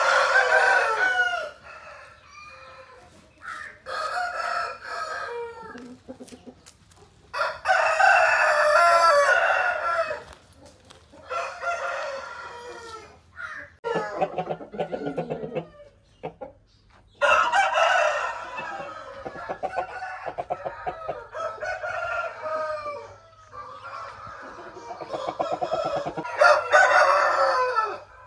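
Aseel roosters crowing repeatedly, several long loud crows spaced some seconds apart, with quieter clucking and calls from the flock between them.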